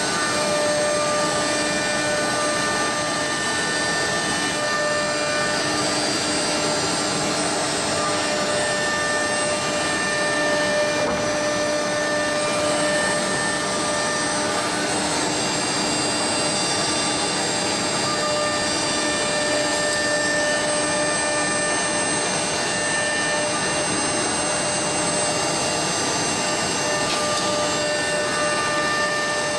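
CNC router machine running steadily: a continuous whine with several held tones that drop in and out.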